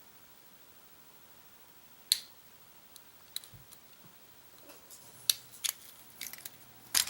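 Sharp metallic clicks and clacks of Master padlocks and steel lock picks being handled: single clicks about 2 and 3.5 seconds in, a quicker run of them after 5 seconds, and the loudest double clack near the end.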